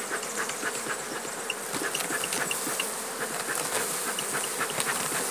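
Honeybee colony buzzing steadily in an opened, smoked hive, with scattered small ticks throughout.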